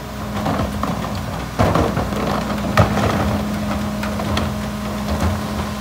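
Rear-loader garbage truck's engine idling with a steady hum, while plastic wheeled carts are tipped and knocked against the hopper's edge, giving sharp bangs about a second and a half in and, loudest, nearly three seconds in.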